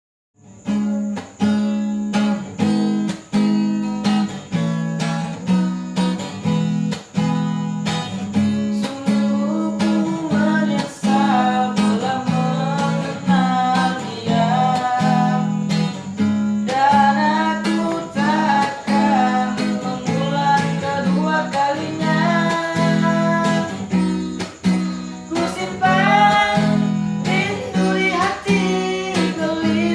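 Acoustic guitar strummed in a steady rhythm as a song intro, with a voice joining in singing about ten seconds in.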